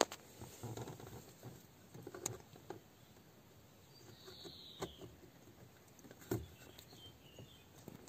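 Faint, irregular clicks and light scraping of a replacement ignition switch box being handled and fitted onto the steering lock housing, with a few sharper clicks.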